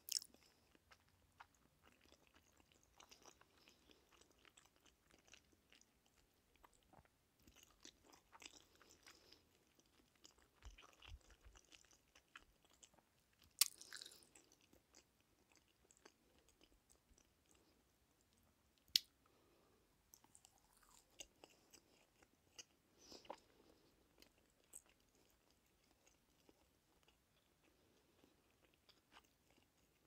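Close-miked sounds of a person chewing and biting food, soft and scattered, with a few sharp crisp snaps; the two loudest come a little before halfway and again about five seconds later.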